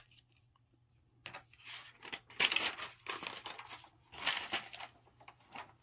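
Rustling and crinkling of hands rubbing and shifting stuffed crocheted yarn pieces, in several short bursts, the longest in the middle.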